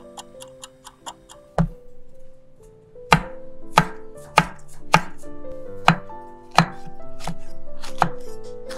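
Chef's knife slicing red chili peppers on a wooden cutting board: a sharp knock on the board with each cut, about every two-thirds of a second, over background music. In the first second or so there are quick light ticks.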